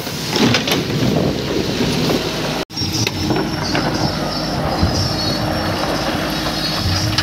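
Wind on the microphone over engine noise, broken by a sudden cut about two and a half seconds in; after it a Mahindra backhoe loader's diesel engine runs steadily while its rear bucket works in a rocky, water-filled stream bed.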